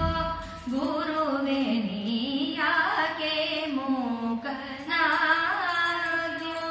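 A woman singing a Kannada devotional song from a text, with long held notes that glide up and down in pitch.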